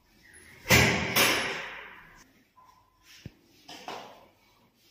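Two loud bangs about half a second apart, each dying away in a long echo through bare, tiled rooms.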